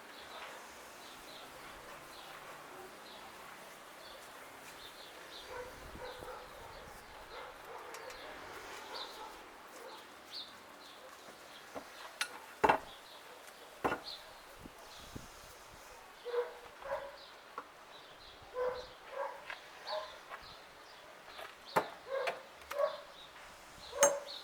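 Birds chirping, with a dog barking repeatedly in the second half and two sharp knocks about halfway through.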